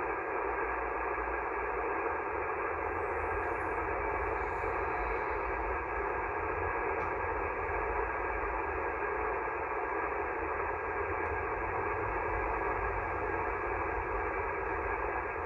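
Steady static hiss from a shortwave amateur radio receiver with no voice on the frequency, cut off in the highs and lows by the receiver's narrow voice filter, with a low hum underneath.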